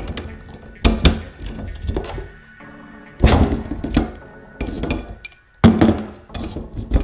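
Metal parts and hand tools clinking and knocking against the radiator and the workbench, several sharp hits a second or so apart, over background music.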